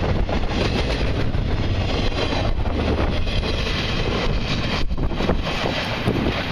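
Intermodal freight cars of a long freight train rolling past, a steady rumble of wheels on rail, with wind buffeting the microphone.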